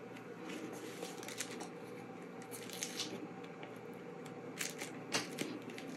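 Faint crinkling and rustling of a diamond painting canvas's clear plastic cover film as strips of washi tape are pressed and smoothed onto it by hand, with scattered crackles and a couple of sharper ones near the end.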